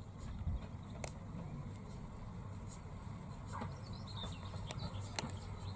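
Small 15-inch-gauge steam locomotive rolling slowly over pointwork: a low rumble with a few sharp clicks. Birds chirp faintly now and then.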